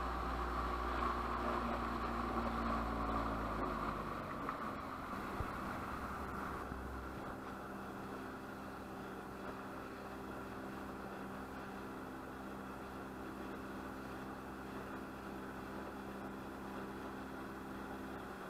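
Speedboat engine running with water rushing past the hull; about four seconds in the engine eases off and the sound drops, and a steady, quieter engine hum continues as the boat slows.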